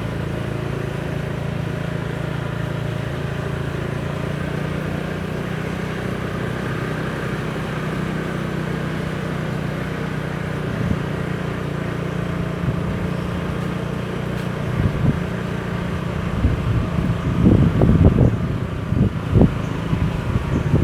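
A vehicle engine running steadily with a low hum, with wind noise on the microphone. During the last few seconds it gives way to uneven low rumbling gusts.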